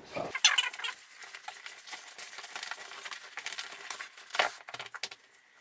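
Sleeping bag being stuffed down into a Lomo roll-top dry bag: continuous rustling and scrunching of synthetic fabric, loudest about half a second in and again at about four and a half seconds.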